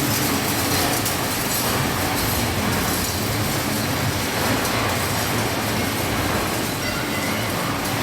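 Heavy machinery running with a steady, loud rumble and rattle.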